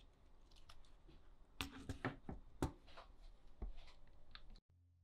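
Apple Magic Keyboard being handled and set down on a desk: a few faint clicks, then a quick cluster of light knocks and taps about two seconds in. The sound cuts off suddenly near the end.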